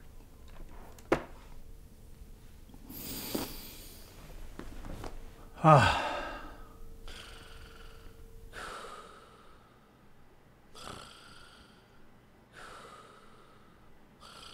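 A man lets out a loud, falling sigh, 'ah'. Then a sleeping man breathes heavily with snoring breaths, about one every two seconds. A sharp click comes about a second in.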